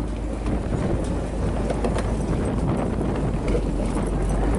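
Steady low rumble of a fishing boat under way, with wind buffeting the microphone and scattered light clicks and knocks.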